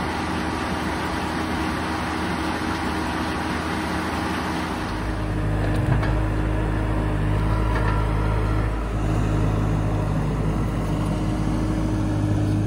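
Frick circular sawmill running, its 48-inch carbide-tipped blade spinning, driven by a three-cylinder Detroit Diesel engine. About five seconds in this gives way to the steady, deeper running of a Bobcat compact track loader's diesel engine.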